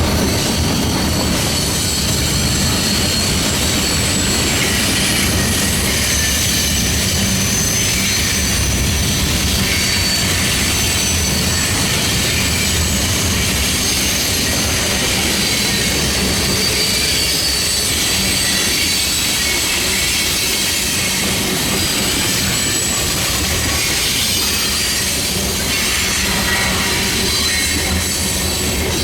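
Freight train cars rolling by: a steady rumble of steel wheels on rail, with thin, high-pitched squeal from the wheels.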